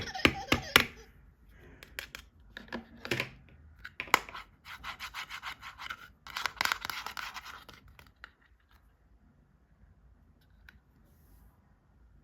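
Plastic toys and packaging handled by hand: scratching and rubbing with a string of sharp clicks, dying away to near quiet about 8 seconds in.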